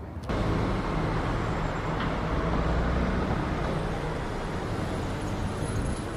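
Steady rumble of road traffic, an even noise weighted to the low end with no distinct events.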